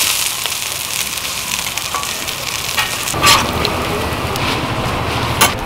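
A thin Korean vegetable pancake (jeon) sizzling and crackling in oil on a flat-top griddle. A metal spatula scrapes under it about three seconds in to lift and flip it, and there is a sharp tap near the end.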